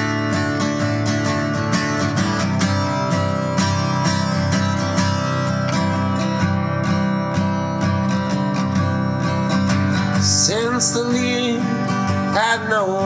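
Strummed acoustic guitar playing a song intro, with a singing voice coming in about ten seconds in.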